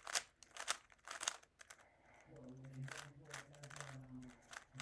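Plastic speed cube being turned quickly during a timed solve: an irregular run of sharp plastic clicks and clacks, with a few louder ones in the first second and a half.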